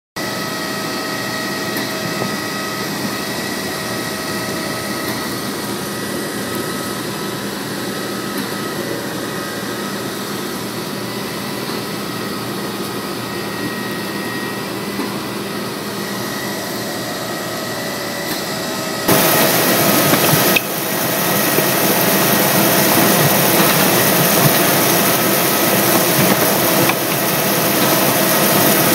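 Scania concrete mixer lorry's engine and mixing machinery running steadily, with a steady mechanical whine over the engine noise. It gets louder about two-thirds of the way through.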